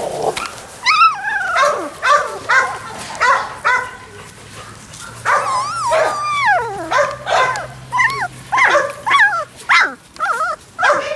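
Labrador retriever puppies whining and yelping in a rapid string of short, high cries, some longer ones falling in pitch: distress calls from young puppies unhappy at being set on the lawn for the first time.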